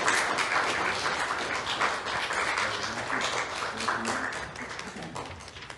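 Congregation applauding, many hands clapping together, the applause fading away toward the end.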